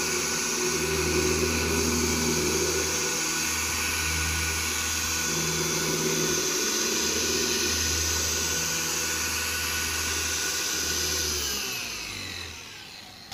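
Corded electric orbital car polisher running with a foam pad on painted car-body panel, working an all-in-one polish in light passes: a steady motor whine over a low hum that swells and drops every second or two as the pad moves. Near the end it is switched off and winds down.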